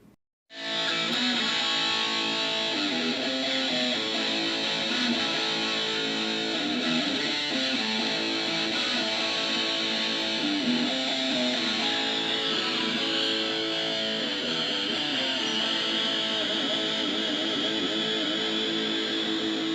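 Interlude music led by guitar, running steadily between segments.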